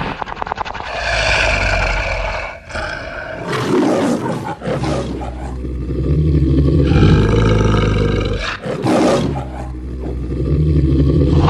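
Monster roar sound effect: a run of about four long, deep, growling roars one after another, with a low rumble underneath.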